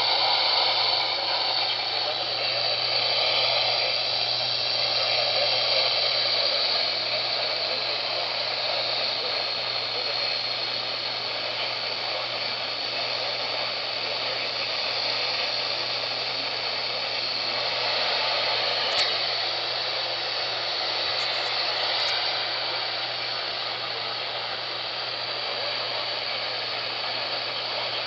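Steady static hiss from a weather radio receiver that has lost the NOAA Weather Radio broadcast to poor reception, with a low hum underneath and a few faint ticks.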